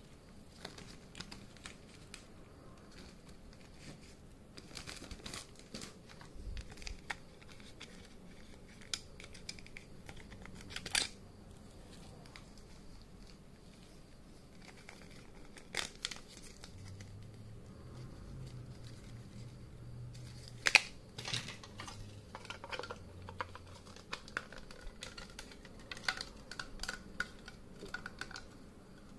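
Plarail plastic toy-train parts being handled: scattered light clicks and clatter of hard plastic pieces, with a few sharper knocks and some crinkling of a plastic bag.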